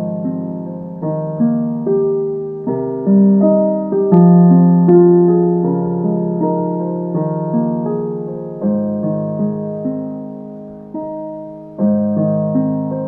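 Background piano music: single notes and chords struck one after another and left to ring and fade.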